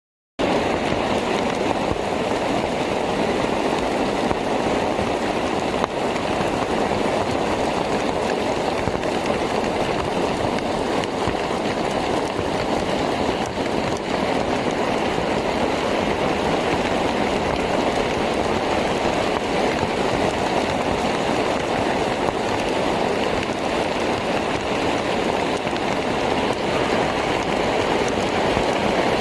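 Steady rain falling on a maize field during a storm, an even, unbroken hiss of rain that starts just after the beginning.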